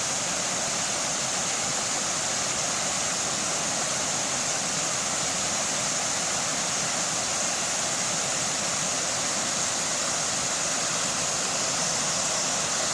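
Waterfall cascading over and through large lodged boulders, a steady rushing of water that stays even throughout.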